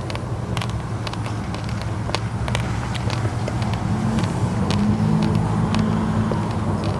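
A motor vehicle engine running with a steady low hum that swells about four to six seconds in, as if passing close. Scattered sharp crunches of raw rice grains being chewed sound over it.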